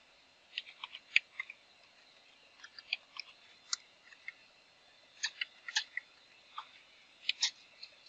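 Computer keyboard keys clicking in small irregular clusters as a password is typed and Enter is pressed.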